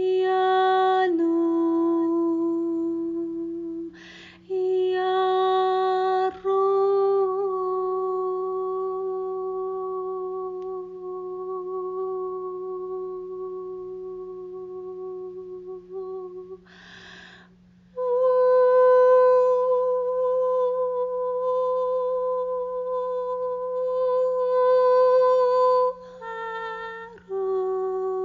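A woman's voice toning long, wordless sustained notes, each held for several seconds, with audible inhalations between them; the pitch steps up about two-thirds of the way through. A faint steady low hum lies underneath.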